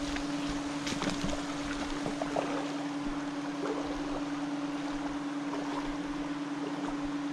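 A small water pump's motor running with a steady hum, drawing creek water through tubing to an environmental DNA filter, over the rush of the stream.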